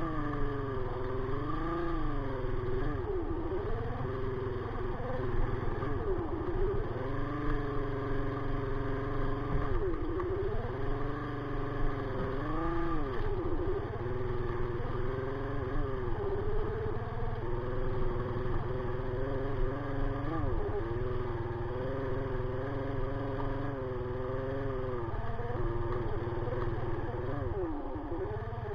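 Sigma 250cc motorcycle engine running while it is ridden, its revs rising and falling again and again with the throttle, holding steadier for stretches in the second half.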